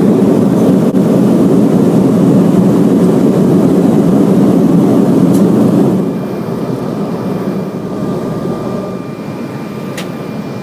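Jet airliner cabin noise in flight: the steady roar of the engines and rushing air, loud at first and somewhat quieter about six seconds in, with a faint steady whine above it.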